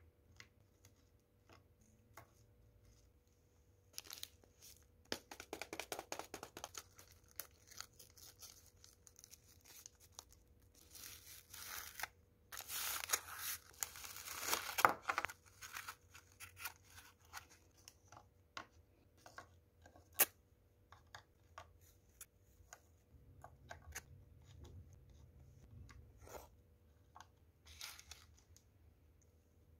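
Snack packaging torn and crinkled open by hand in several bursts. The loudest comes about halfway through, as a paper wrapper around a tube of wafer rolls is ripped open. Scattered light clicks come from wafers and biscuits being set down on a wooden serving board.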